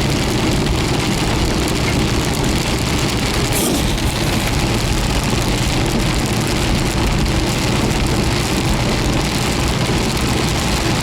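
Steady noise inside a car driving through a heavy thunderstorm: heavy rain on the car over the low hum of the engine and tyres on the wet road.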